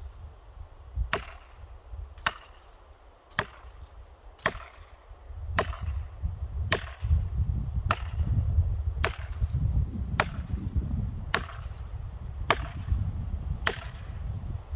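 Felling wedge being driven into a Douglas fir's back cut, struck twelve times at a steady pace of about one blow a second. Wind rumbles on the microphone underneath.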